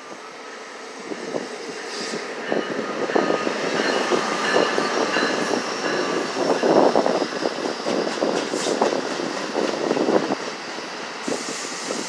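NJ Transit bi-level commuter train rolling past on the track, growing louder over the first few seconds as it draws near. The wheels knock and clack steadily, with a thin high metallic whine above them.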